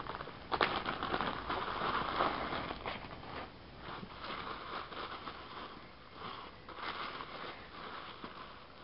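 Zip-top plastic bag and tissue paper rustling and crinkling as they are opened and unwrapped by hand, with a sharper click about half a second in.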